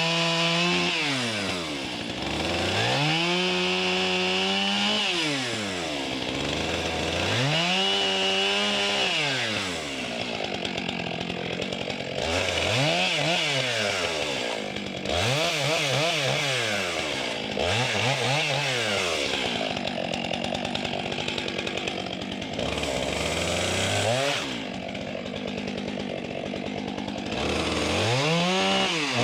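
Stihl chainsaw cutting pine logs into rounds, the engine revving up to full throttle and dropping back again and again, with the speed held high for a few seconds during the longer cuts.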